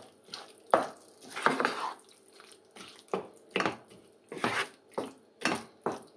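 Wooden spatula stirring and scraping a thick, wet potato-and-aubergine mash around a nonstick pan, in repeated strokes about once or twice a second.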